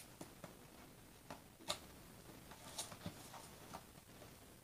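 Faint, scattered light clicks and taps of a cardboard diamond painting kit box being handled and stood upright, with a sharper tap a little under two seconds in and another near three seconds.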